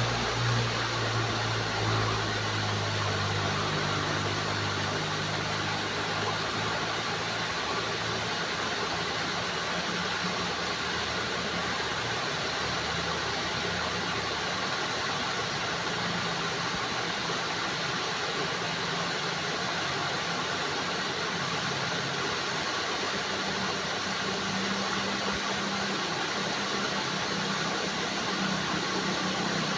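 Flowing water making a steady, even rushing noise, with a low hum underneath that shifts in pitch.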